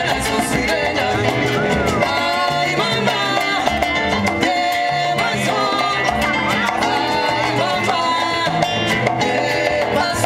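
Live salsa band playing, with bass, congas, guitar, keyboard and trumpet.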